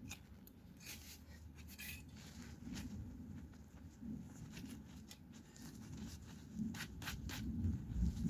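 Hands digging and scraping through loose garden soil, with scattered soft scratches and rustles.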